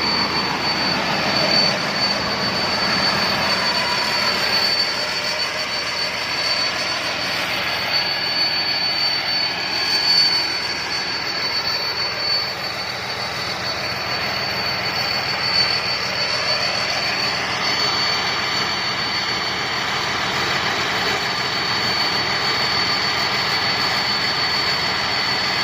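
Rice combine harvester running steadily, a dense engine and machinery noise with a thin high-pitched whine held over it.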